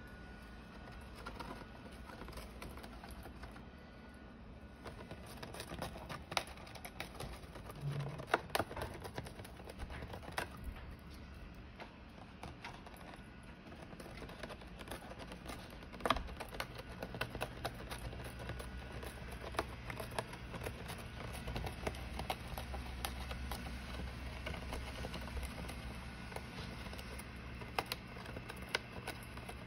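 Rosy-faced lovebird chewing and tearing at a paper gift bag with its beak: irregular small clicks and crinkles of paper being bitten and shredded.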